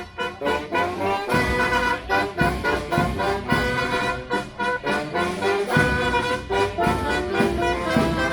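Background music with brass instruments playing over a steady beat, in a swing or jazz style.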